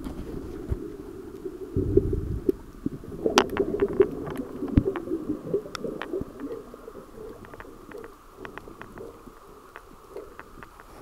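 Underwater sound: muffled, low rumbling water movement with many sharp scattered clicks and crackles, busier in the first half and quieter after the middle.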